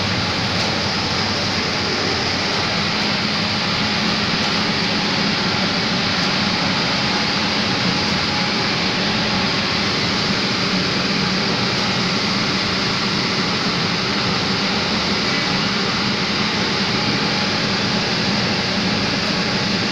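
Steady machinery noise of a vapour absorption chiller plant running: an even rushing noise with a constant low hum beneath, unchanging throughout.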